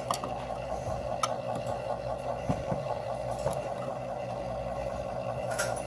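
Economizer damper actuator motor running steadily as it drives the damper open at full signal, with a few light clicks.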